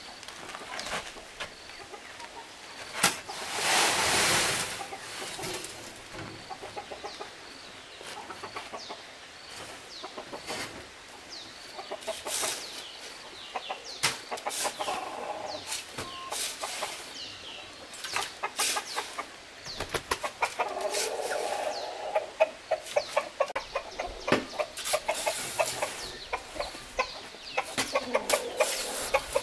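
Domestic chickens clucking on and off, more often in the second half. About four seconds in there is a rush of sand sliding out of a tipped wheelbarrow, and light knocks and clicks are scattered throughout.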